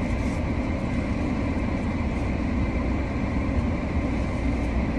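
Steady drone inside a parked car's cabin: the engine idling with the air conditioning blowing.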